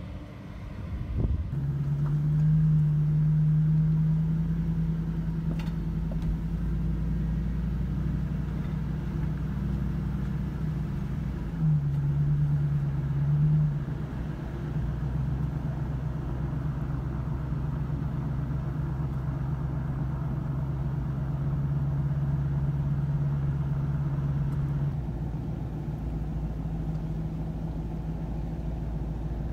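A car's engine and tyre noise while driving, a steady low hum that rises briefly about twelve seconds in and settles lower again near the end.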